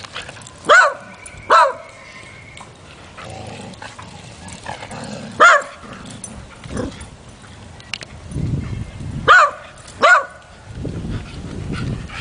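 Dog barking during play: five short, sharp barks, two in quick succession about a second in, one at about five and a half seconds, and another quick pair near the end.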